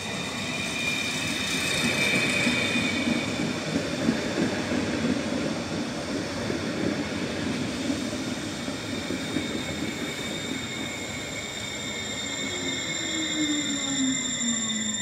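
Stadler FLIRT electric multiple unit ETR 343 running into a station and slowing: wheels rumbling on the rails, with several steady high-pitched whines and squeals. Near the end a lower whine falls steadily in pitch as the train brakes to a stop.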